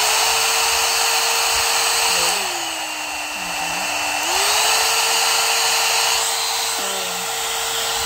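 One-step hair dryer brush running: a steady motor whine over rushing air. The motor drops to a lower speed about two seconds in and climbs back up about four seconds in as the speed setting is changed.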